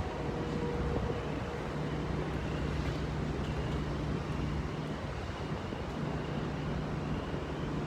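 Steady hum of a car engine with wind and road noise.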